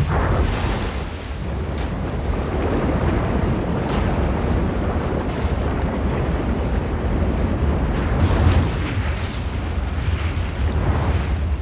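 River rapids rushing steadily, with a deep rumble and a few brief louder splashes: one just after the start, one about eight seconds in, and one near the end.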